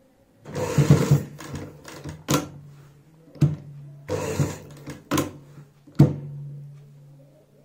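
Industrial sewing machine stitching in two short runs while lace is guided around a curved neckline, with a few sharp clicks between the runs. Its motor hums steadily in the pauses.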